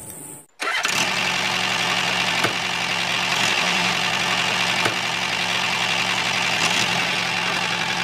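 A motor running steadily at an even speed, starting about half a second in after a brief dropout, with a low hum under a bright whirring hiss.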